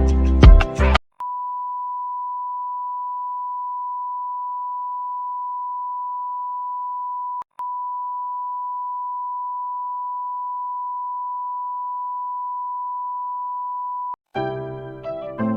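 Music cuts off about a second in, followed by a steady electronic beep tone at one unchanging pitch, like a test tone, held for about thirteen seconds with one brief break partway through. Electric piano music starts near the end.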